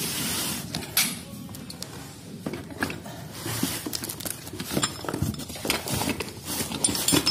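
A black metal wall lamp being handled on cardboard packaging: irregular light knocks, clinks and scrapes of the metal, with cardboard rustling. The rustle is loudest in the first half-second.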